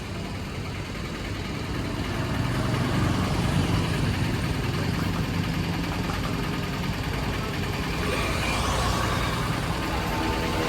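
Road traffic: motor-vehicle engines running close by with a steady low rumble, and a louder vehicle approaching near the end.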